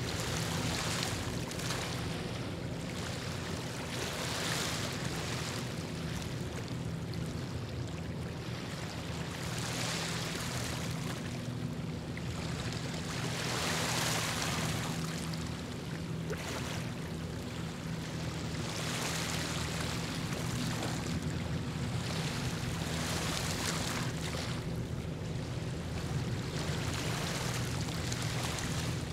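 Water washing in irregular swells every few seconds, over a steady low hum that does not change.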